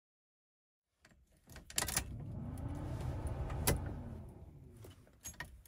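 Clicks and knocks with a low rumble of handling noise inside a parked car's cabin, one sharper click near the middle; the engine is not yet running.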